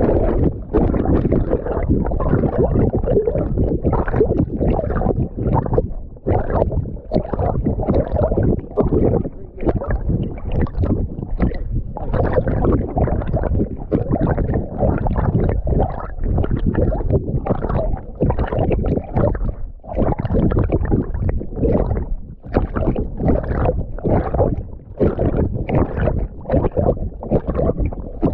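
River water sloshing and wind buffeting a GoPro worn by a dog: a muffled, uneven low rumble that surges and drops in quick, irregular pulses.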